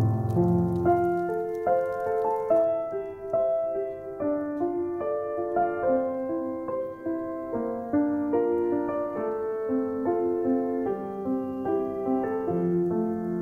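Background piano music: a slow melody of separate notes over soft lower chords.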